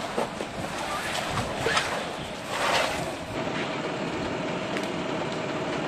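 Steady rushing noise of a large fire burning, with sharp crackles and a louder burst of hiss a little before halfway. From a little past halfway a fire engine's engine runs steadily under the noise as a faint even hum.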